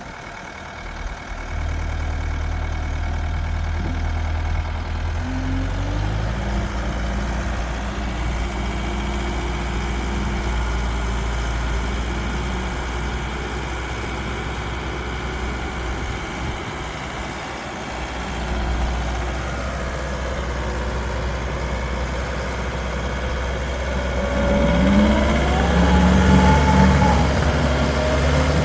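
Kubota turbo diesel engine of a Takeuchi TL10V2 skid steer running steadily. Its sound shifts a little about a fifth of the way in, and near the end it grows louder, with rising and falling whines over the engine.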